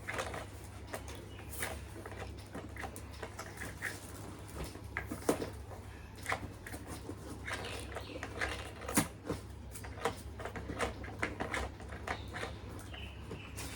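Scattered light clicks and taps of gifts and packaging being handled during an unboxing, over a steady low hum.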